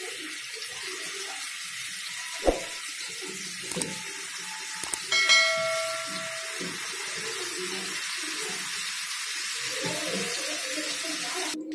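Masala-coated anchovies frying in hot oil in a nonstick pan: a steady sizzle, with a sharp tap about two and a half seconds in and a short ringing chime about five seconds in.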